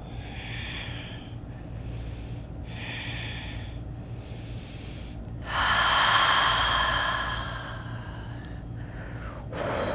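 A woman breathing audibly while holding a yoga pose: two soft, short breaths in the first few seconds, then a longer, louder exhale of about two and a half seconds past the middle, and another breath near the end.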